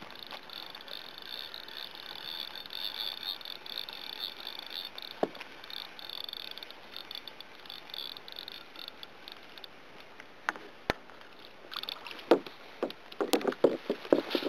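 Fishing reel being wound in, a steady whirring for about the first ten seconds, followed by scattered clicks and then a quick run of knocks and rattles near the end as tackle is handled against the kayak.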